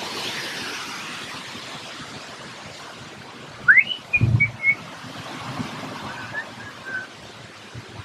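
Steady rush of flowing stream water. About four seconds in comes a rising whistle and a few short whistled notes over a low thump, with fainter short notes a little later.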